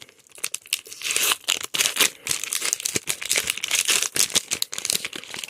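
Foil wrapper of a Pokémon card booster pack being torn open and crinkled by hand, a rapid irregular crackling throughout.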